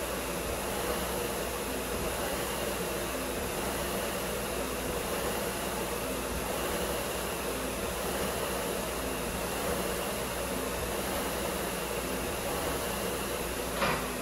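Concept2 SkiErg's air-resistance flywheel whirring steadily, with a faint pulse at each pull a little under once a second. A single sharp knock near the end as the handles are hung back up.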